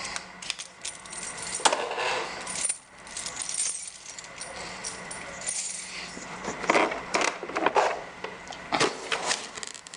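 Small metal lock parts clinking and rattling while an old Yale lock is taken apart, with irregular sharp clicks and scrapes, a few louder ones near the start and near the end.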